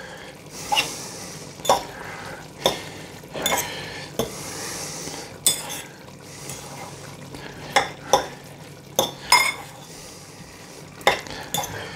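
A fork tossing sauce-coated jajangmyeon noodles in a bowl: a wet, sticky stirring sound with sharp clinks of the fork against the bowl, roughly one a second at irregular intervals.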